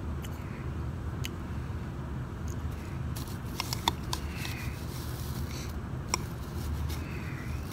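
Metal spoon scooping shaved ice in a glass bowl: scraping through the ice, with a few sharp clinks of the spoon against the glass, the loudest about four seconds in. A steady low hum runs underneath.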